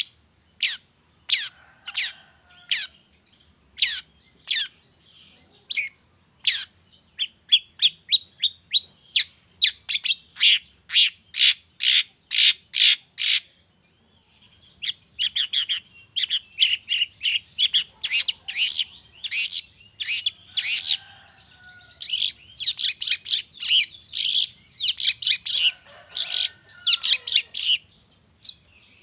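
Long-tailed shrike (cendet) calling: sharp, chattering notes repeated in quick trains, speeding up into dense runs, with a brief pause about halfway through.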